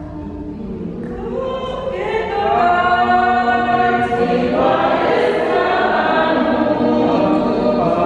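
A small group of women singing together, the singing growing louder and fuller about two seconds in.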